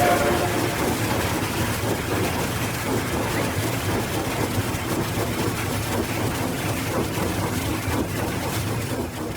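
Locomotive running on the rails, a steady rumbling clatter with a deep low hum. The tail of a whistle blast cuts off just at the start, and the rumble dips slightly toward the end.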